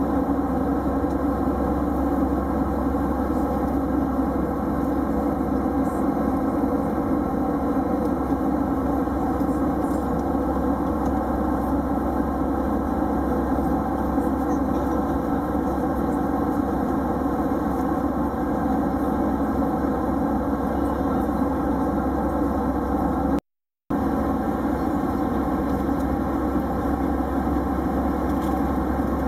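Steady cabin drone of an Airbus A320 airliner in flight, with engine and airflow noise heard from a window seat. It cuts out completely for a split second near the end.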